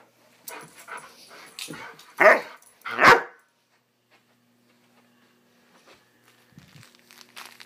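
Young Greater Swiss Mountain Dog barking: two loud barks a little over two and three seconds in, with softer sounds before them.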